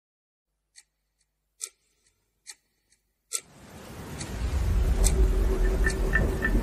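Opening of a background music track: four sharp ticks a little under a second apart, then a swell with deep bass that grows louder from about three and a half seconds in.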